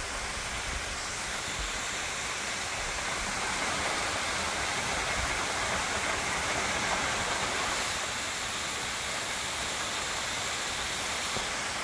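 Waterfall pouring down a sandstone bluff: a steady rush of falling, splashing water.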